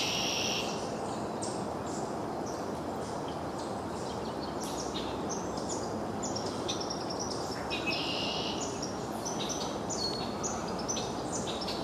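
Steady rush of a flowing creek, with birds chirping in short repeated calls over it.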